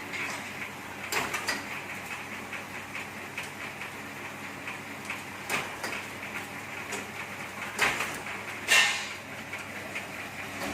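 Bamboo satay-skewer making machine, 'tulup' type, running with a steady motor hum, broken by a few sharp knocks and clatters. The loudest knocks come near the end.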